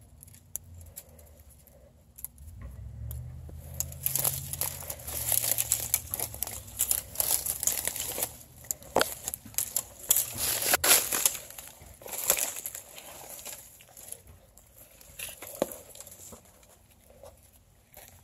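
Dry twigs, dead branches and leaves crackling and rustling while pushing through dense brush on foot, with a few sharp twig snaps. It is busiest through the middle and thins out near the end.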